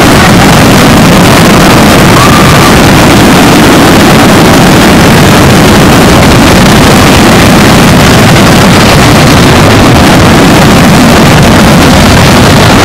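Huge mass of fireworks going off at once, the bangs blending into one continuous loud roar that overloads the recording.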